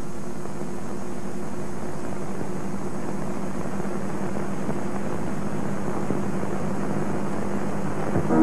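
A steady drone with a low hum of constant pitch under an even hiss, unchanging throughout.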